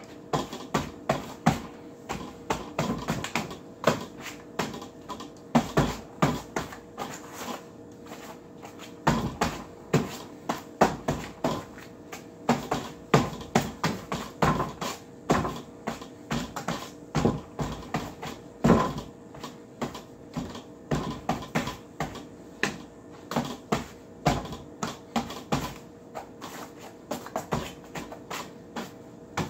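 A large rattan training ring knocking and clacking against forearms and hands in quick, irregular strikes as it is worked through wing chun-style drill moves.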